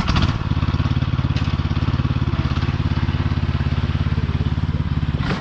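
Cub Cadet XT1 riding lawn mower's engine running close by, a steady, rapidly pulsing drone. It starts and cuts off suddenly.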